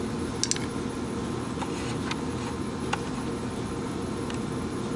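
Steady low mechanical hum of room ventilation, with a few light clicks about half a second, a second and a half and three seconds in.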